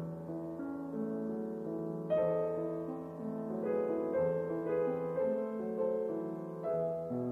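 Soft piano music, slow and gentle, with chords and single notes changing every half second or so.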